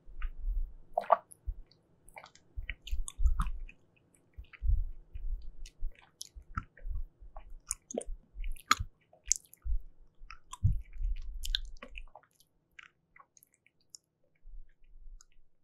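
Close-miked chewing of jelly, with many small mouth clicks; the chewing stops about three-quarters of the way through.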